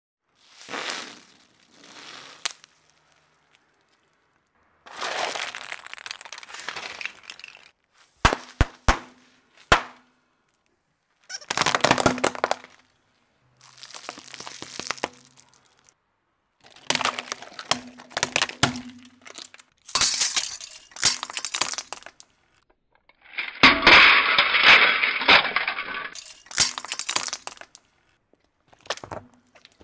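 A car tyre rolling over and crushing plastic-wrapped and bubble-wrapped objects, in a string of separate crackling and crunching bursts a second or two long with silent breaks between them. Around eight to ten seconds in come a few sharp single pops, and a denser crushing burst comes past the middle.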